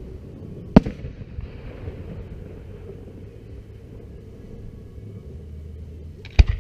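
Aerial firework shells bursting: one sharp bang about a second in, then a quick cluster of bangs near the end, with a low rumble in between.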